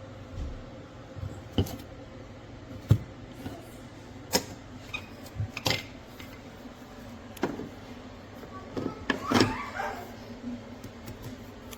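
Scattered sharp clicks, taps and knocks of hard objects being handled, with a busier run of knocks near the end.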